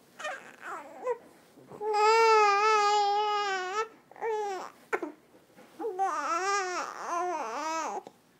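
Three-month-old baby vocalizing: a few short sounds, then one long held note of about two seconds, more short sounds, and a long wavering call that dips in pitch several times near the end.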